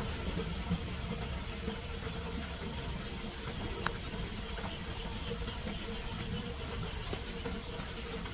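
Steady wash of rainwater on a flooded street, with a faint steady hum beneath it and a couple of small clicks.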